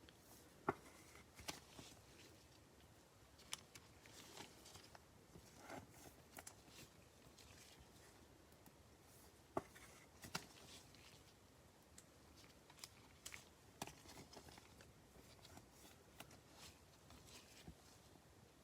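Faint, scattered clicks and rustles of trading cards and card packaging being handled in a small room.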